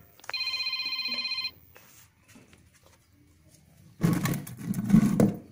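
A short electronic trill, like a phone ringing, for about a second. Near the end, a louder, rougher scraping of a metal spoon in a wok of cooked sugar syrup lasts about a second.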